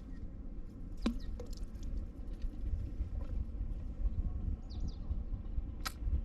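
Outdoor ambience: a steady low rumble with a sharp click about a second in and another near the end, and a few faint high chirps in between.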